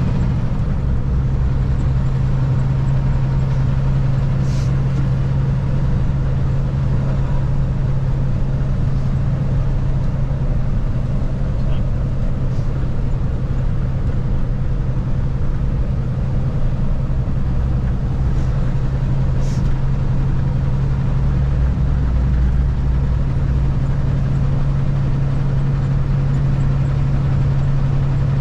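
Truck engine running steadily: a constant low drone that holds one pitch, with a couple of faint ticks.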